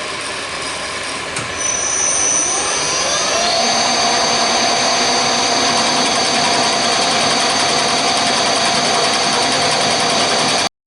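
A power tool's electric motor running, its pitch rising over a couple of seconds to a steady high whine that then holds. It cuts off suddenly near the end.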